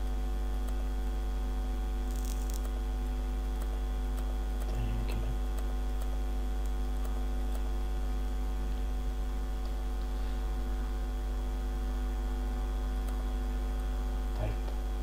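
Steady electrical mains hum with a stack of buzzing overtones, picked up by the recording, with a few faint clicks and a brief hiss about two seconds in.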